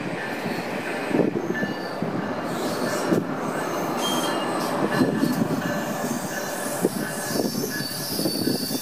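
Metro-North M8 electric multiple-unit cars rolling out slowly. The wheels squeal in thin high tones over a steady rumble, with a few sharp knocks.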